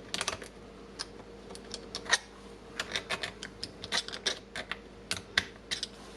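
Irregular light metallic clicks and taps as hand tools work a spring ring into the head of a Bosch GBH 2-26 hammer drill.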